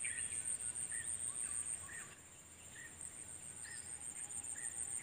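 Insects in a steady, high-pitched chorus, with a short chirp repeated about once a second.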